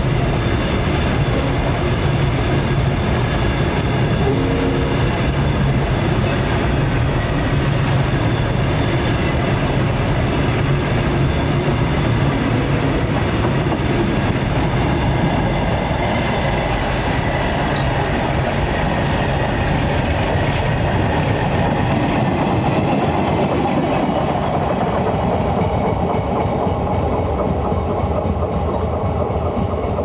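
Freight train of flat wagons rolling past close by: a loud, steady rumble and clatter of steel wheels on the rails, easing off a little near the end as the last wagons and brake van go by.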